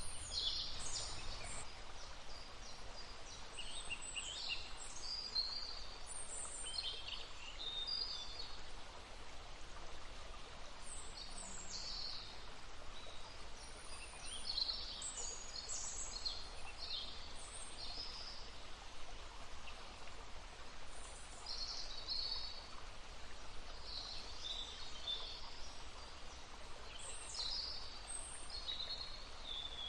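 Small songbirds singing and calling in quick, high chirps and trills, one after another, over the steady murmur of a brook.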